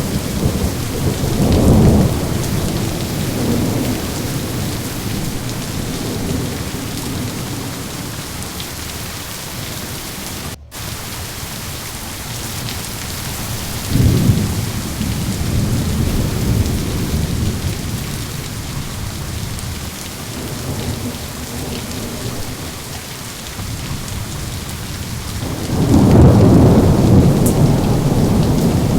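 Steady heavy rain with rolling thunder: one rumble near the start, another about halfway through, and the loudest, longest one near the end. A split-second gap in the sound about a third of the way in.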